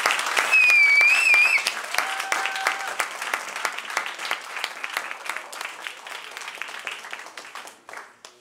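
Audience applauding, loud at first, then thinning out and fading away until it stops near the end.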